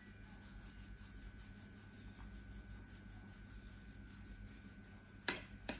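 Kitchen knife sawing back and forth through a wrapped vegetarian roll: faint quick rasping strokes, then near the end two sharp taps as the blade comes down on the plastic cutting board.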